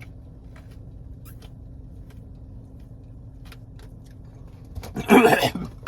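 A steady low hum with a few faint light clicks and taps; near the end, a short loud burst of voice.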